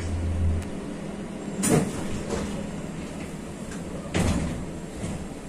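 Doors of a 71-623-02 (KTM-23) tram closing, heard from outside the car: two short door thuds, about a second and a half in and again about four seconds in, over a low hum.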